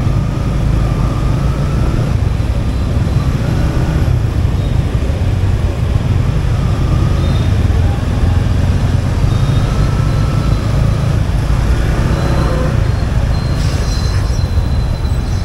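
Riding a motorbike through city traffic: a steady low rumble of wind buffeting the microphone and engine noise, with traffic sounds around.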